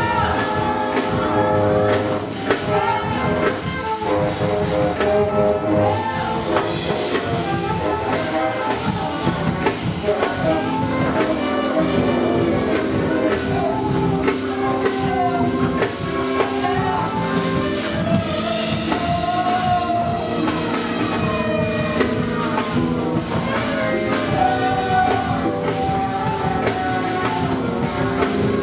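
Live music from a large mixed ensemble: drum kit, bass and horns playing together in a jazz-like arrangement.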